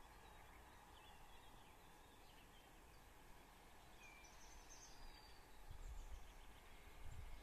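Near silence of open countryside: a faint steady outdoor hiss with a few brief distant bird chirps, and a low rumble of wind on the microphone starting near the end.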